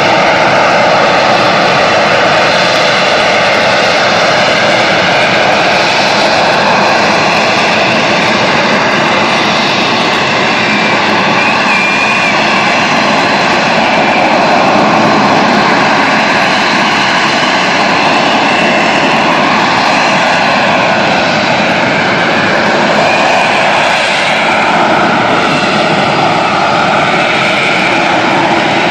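British Aerospace Sea Harrier's Rolls-Royce Pegasus vectored-thrust turbofan holding the jet in a hover: a loud, steady jet roar with whining tones that waver slightly in pitch.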